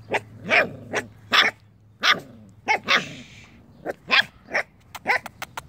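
Schnauzer puppies barking: a string of short barks, coming closer together near the end.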